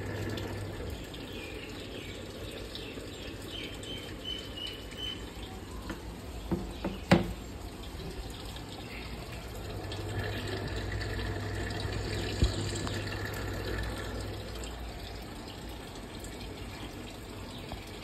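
Water running into the tub of a Samsung 8 kg top-load fully automatic washing machine as it fills mid-cycle. A steady rush is joined by a low hum at the start and again from about ten to fourteen seconds in. There is a sharp knock about seven seconds in and a smaller one around twelve seconds.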